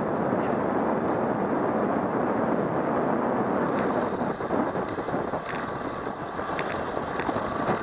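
Steady rush of wind over the camera microphone as a road bike descends at speed, with tyre noise on asphalt. A few short, faint clicks come through in the second half.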